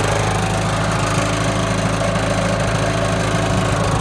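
Portable sawmill's engine running steadily, kept running so the alternator can power the hydraulics while the log lift is worked.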